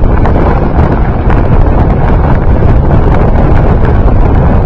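Loud, steady wind buffeting the microphone of a camera riding on a moving dog sled, a low rumbling rush with no let-up.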